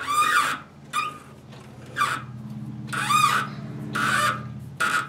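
A 6-32 tap squealing as it cuts thread in brass while the lathe chuck is turned by hand: about six short squeals, each rising and falling in pitch.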